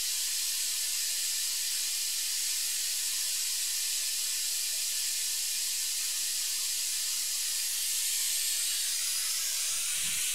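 Steady hiss with a few faint hum tones under it, and a soft low thump near the end.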